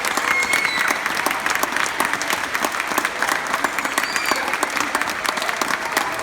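Audience applauding steadily after a school orchestra performance, a dense clatter of many hands clapping, with a few faint whistles or shouts.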